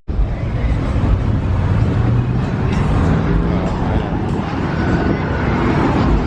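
Car engine running, with a steady low hum and street noise.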